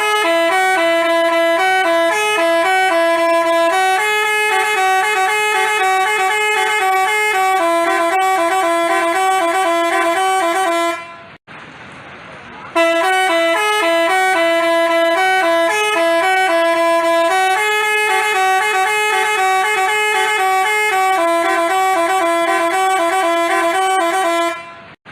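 Basuri multi-tone 'telolet' bus horn playing a fast tune of switching notes. The tune stops about eleven seconds in and starts over a second later.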